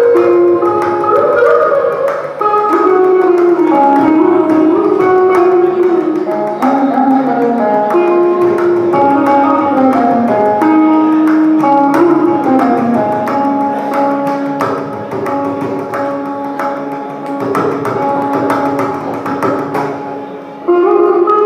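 Carnatic music: an electric mandolin plays a melody of held notes with pitch slides, over steady mridangam strokes. The music gets quieter for a few seconds before the end, then comes back loud just before the end.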